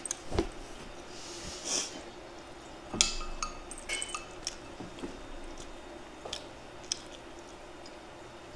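Eating at the table: utensils clicking and clinking against ceramic bowls and dishes in scattered single knocks, a few with a short ring, plus a brief wet sound near the start.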